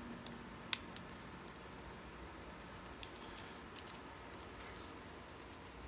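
Faint clicks and light taps of a 9.6 V NiCd battery pack and its plastic connector being picked up and handled on a wooden bench, with one sharper click just under a second in and a few lighter ones later.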